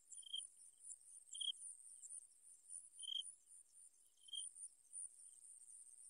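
Crickets giving a faint, steady high-pitched trill, with a short chirp four times, one to one and a half seconds apart.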